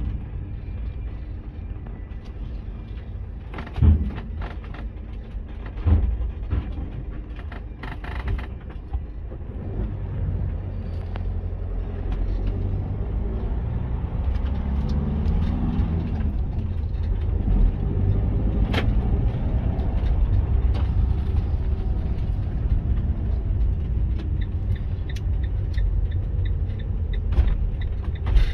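Auto-Sleeper Corinium FB motorhome driving, heard from inside the cab: a steady low engine and road rumble that grows louder about a third of the way through, with a couple of sharp knocks in the first six seconds.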